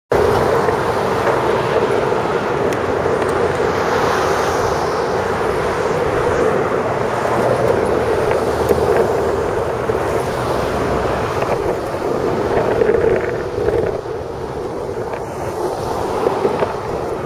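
Longboard wheels rolling steadily over rough asphalt, a continuous rumbling roar, with wind buffeting the microphone.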